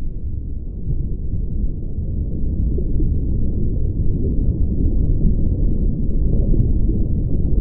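A steady low rumbling noise with nothing in the upper range, growing a little louder over the first few seconds.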